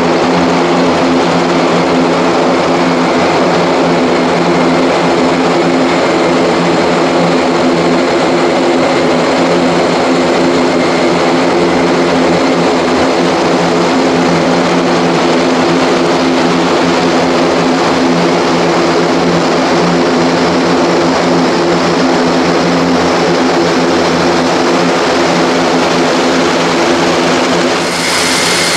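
Airbus A400M military transport's four turboprop engines running as it taxis close by: a loud, steady propeller drone with several steady hum tones under a broad hiss.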